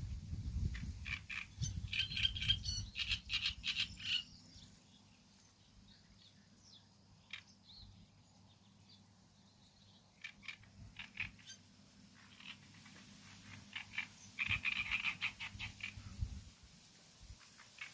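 Outdoor animal calls: rapid trains of clicking croaks coming in several bursts with quiet gaps between, over a low steady rumble that stops near the end.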